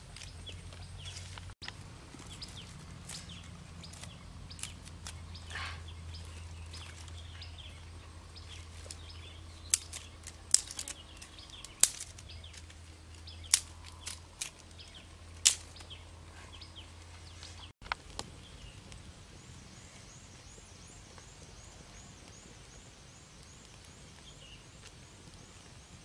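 Dry sticks being snapped by hand: about five sharp cracks a second or two apart over a low steady background hum. Later the hum drops away and a fast, high-pitched trill repeats faintly.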